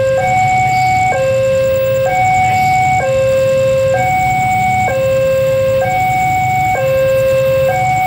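Railway level-crossing warning alarm sounding a two-tone electronic signal, a lower and a higher note alternating about once a second, warning that a train is approaching. A low rumble runs underneath.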